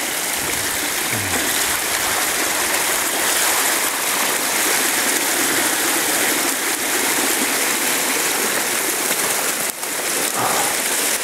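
Steady rushing of running water in a stream channel among snow and ice, an even hiss with no break.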